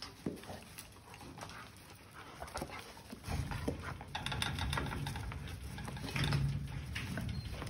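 Adolescent wolf jumping up against a chain-link fence, its paws scrabbling at the wire mesh and rattling it. It grows louder about three seconds in and stays up until near the end.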